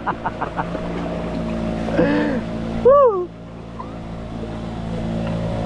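A small boat motor running steadily under way on a river. A brief pitched call or shout cuts through about two and three seconds in, and the overall sound dips for a moment just after.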